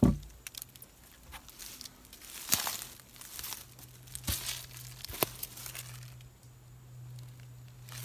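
Dry fallen leaves crunching and rustling in short, irregular bursts as someone moves through the leaf litter, with a sharp thump at the very start.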